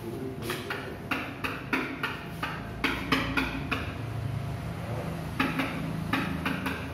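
Marker writing on a whiteboard: a quick run of short strokes and taps, then a pause and a few more strokes near the end.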